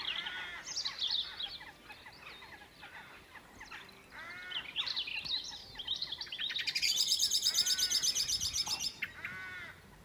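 Several songbirds singing in a dusk chorus, with varied chirps and repeated whistled phrases. About seven seconds in, one bird gives a loud, very fast, high trill that lasts about two seconds.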